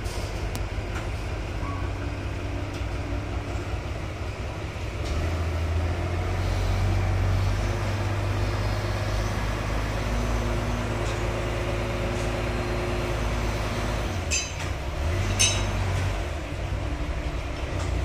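Heavy diesel engine of a construction machine running steadily, its speed and loudness rising about five seconds in. Two short clinks come about fourteen and fifteen seconds in.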